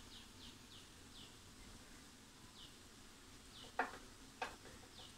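Faint bird chirping: short falling notes, a few in quick succession at the start, then spaced out. A little past halfway come two sharp knocks of cookware as cooked rice is tipped from a glass dish into the wok.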